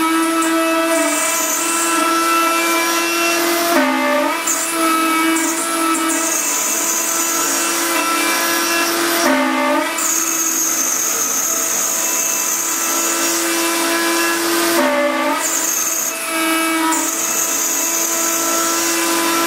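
CNC milling spindle whining at a steady pitch while an end mill cuts into a 10 mm aluminium plate, with a hiss over it. About every five to six seconds the whine briefly drops in pitch and comes back.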